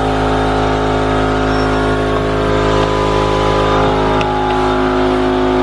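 A motor running steadily at an unchanging pitch, giving a constant mechanical hum.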